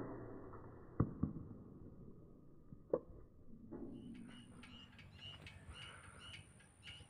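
The fading tail of an airgun shot, followed by a few sharp clicks. After a cut, short high chirps repeat about twice a second over a faint, steady high whine.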